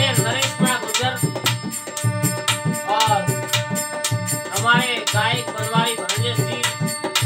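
A man sings a Rajasthani folk Holi song to his own harmonium, whose held reed tones run underneath, while a dholak keeps a steady rhythm.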